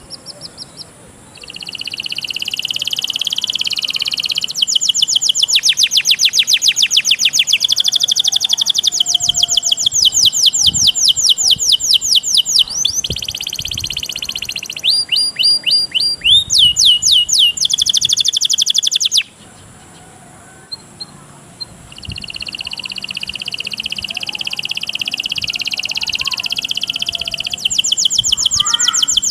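Recorded songbird song, from a training compilation of cililin, cigun and canary: fast rattling trills and rapidly repeated high notes. It breaks off for a few seconds about two-thirds of the way through, then resumes with a buzzy phrase that runs into trills again.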